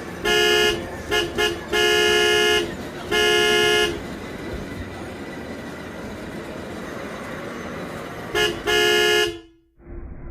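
Toy ride-on electric sport bike's electronic horn honking in a series of beeps: a few short toots and several longer held notes, over a steady background hiss. The sound cuts off suddenly near the end.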